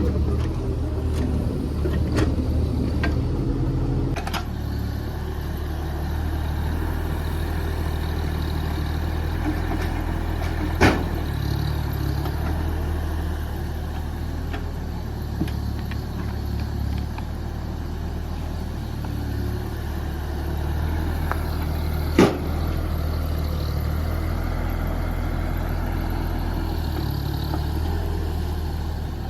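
JCB JS30 Plus mini excavator's diesel engine running steadily while it works. A few sharp knocks from the machine cut through; the two loudest come about a third and two-thirds of the way through.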